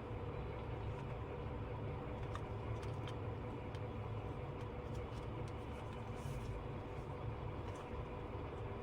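Steady low hum of background machine noise, with a few faint scattered ticks.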